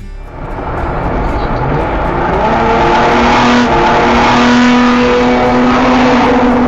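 Car driving at speed, engine and road noise swelling up over about three seconds and then holding loud and steady.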